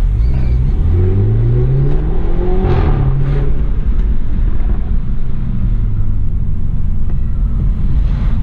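BMW 320i's B48 2.0-litre turbocharged four-cylinder accelerating, its engine note rising for a couple of seconds, with a short break and brief flare near three seconds in, then running steadier at lower revs, over a constant low road rumble.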